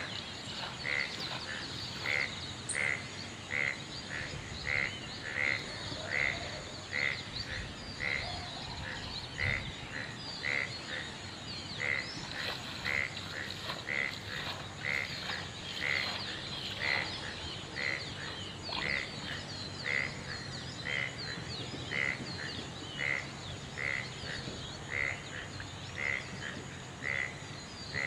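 A frog calling over and over in an even rhythm, one short call about every 0.7 seconds, over a busy chorus of higher, faster chirps.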